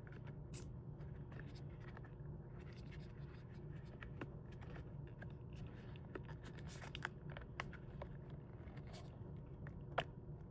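Faint scraping and rubbing of a rubber boot being worked off a CPAP blower motor by hand, with scattered small clicks of plastic parts and a sharper click near the end.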